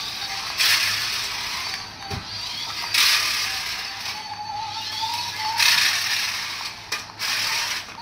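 Toy RC car with a clear body and visible gears driving on a tiled floor: its small electric motor and plastic gear train whir and rattle steadily, surging louder three times for about a second each.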